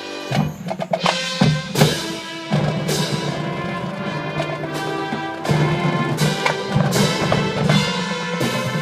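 Marching band music: sharp percussion hits break in just after the start, then the band's held chords carry on over repeated drum strikes.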